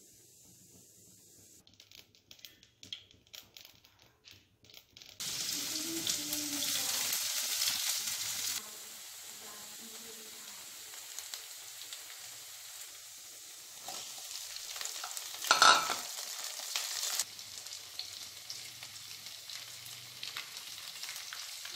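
Mustard seeds crackling in hot oil in a wok, then a sudden loud sizzle as curry leaves go into the oil, settling to a steady frying sizzle as vegetables cook. One sharp clank, the loudest sound, a little past two-thirds through.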